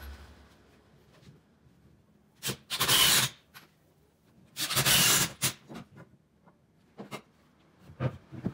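Cordless drill spun briefly twice with no load, short bursts of motor noise while a bit is fitted in the chuck. A few light knocks of timber pieces set down on the workbench near the end.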